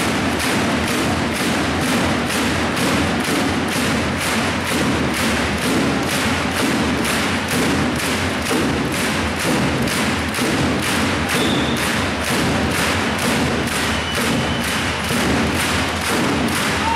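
Arena crowd beating out a steady rhythm in unison, just over two sharp hits a second, with the noise of the crowd underneath.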